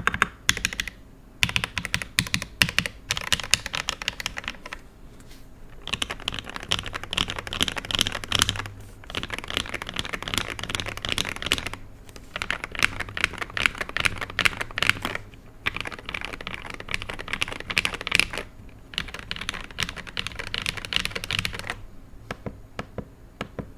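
Mechanical keyboard with Akko Neon ASA-profile double-shot keycaps being typed on in fast runs of dense keystroke clacks, broken by short pauses every few seconds. The typing stops about two seconds before the end.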